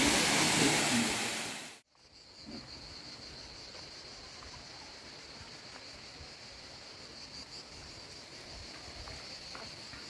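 Small waterfall rushing into a rock pool, a steady loud rush that fades out about two seconds in. It gives way to a faint outdoor background with a steady high-pitched insect buzz.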